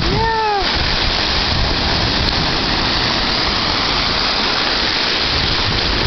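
Ocean surf washing over the shallows, a loud, steady rush of water. A short vocal exclamation with falling pitch comes at the very start.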